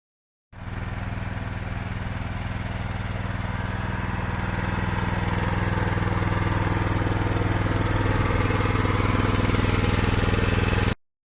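Engine of a homemade hydraulic skid steer loader running steadily, growing slightly louder over about ten seconds; it starts and cuts off abruptly.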